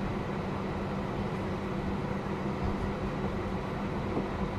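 Airbus A320 jet engine running steadily as the airliner taxis, heard through the cabin: an even rush of noise with a low hum and a faint high whine, no spool-up.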